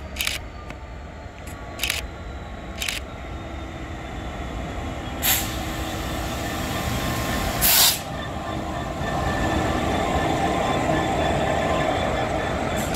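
Class 66 diesel freight locomotive with its two-stroke EMD V12 engine, drawing a rake of loaded gypsum wagons. The engine and wheel noise grow louder as it approaches and passes. Several short sharp noises cut across it, the loudest a brief burst about eight seconds in.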